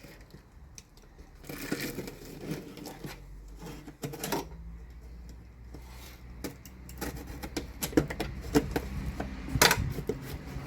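Packing tape being cut and a cardboard box being opened by hand: irregular scraping, tearing and rustling with scattered sharp clicks and knocks, busier near the end.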